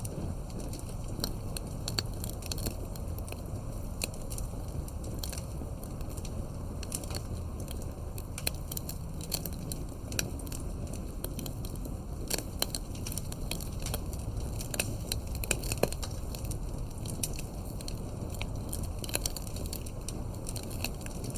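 Wood fire burning: a steady low rumble of the flames with frequent crackles and pops of burning wood, a few sharper pops now and then.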